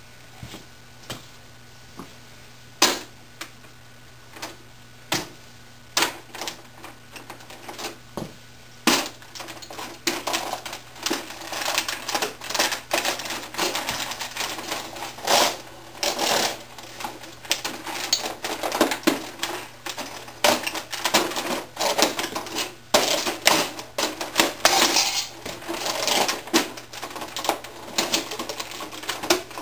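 The plastic case and keys of a 1980s electronic word processor click, creak and crack under a person's heavy leather boots as they stand and shift weight on it. There are a few separate clicks at first, then dense, irregular crackling and clattering from about ten seconds in.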